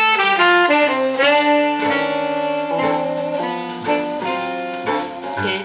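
Instrumental music, the opening of a song, played from a CD through a 6B5 single-ended valve amplifier and its loudspeaker. Quick separate notes give way to held chords about a second in.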